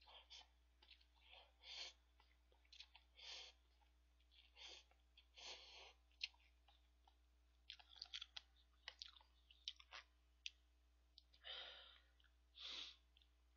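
Faint eating sounds from a person eating cup ramen noodles: short hissing slurps and breaths every second or so, and a run of small wet chewing clicks in the middle.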